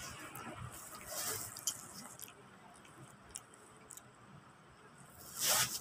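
Shih tzu puppy chewing and biting a piece of bread, with soft wet mouth noises and small clicks. A louder scratchy rustle comes near the end.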